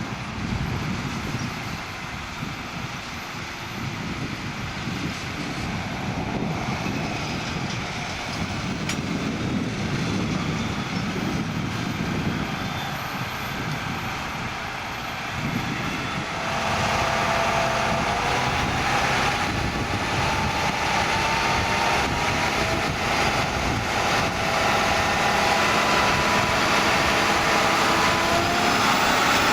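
John Deere 7280R tractor's diesel engine running steadily while ploughing, growing louder about halfway through with a steady whine joining in.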